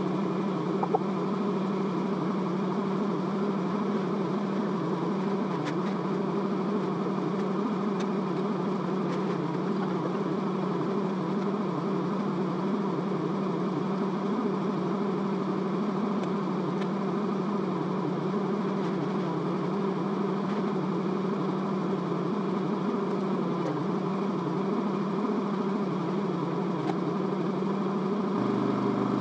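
An engine or motor running steadily at a constant pitch; its note changes slightly about a second before the end.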